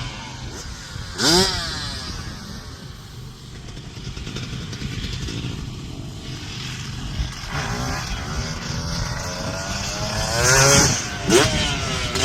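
Dirt bike engine revving in sharp rising-and-falling sweeps, loudest about a second in and again between about eight and eleven seconds in, over a steady low engine drone.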